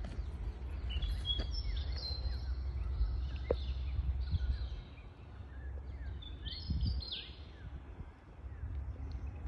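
Birds calling with short high chirps and whistles, in a cluster about two to four seconds in and another around seven seconds, over a steady low rumble and a few soft thuds.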